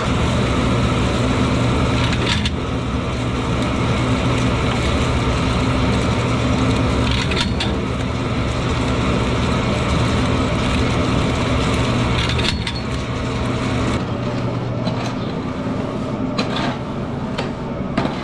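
Dairy barn gutter cleaner running: a steady motor hum with the chain and paddles clattering along the manure gutter, with scattered knocks. The low hum drops away about fourteen seconds in.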